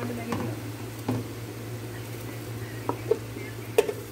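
Wooden spoon stirring a thick harees mixture of grain and milk in a cooking pot, with a few sharp knocks of the spoon against the pot.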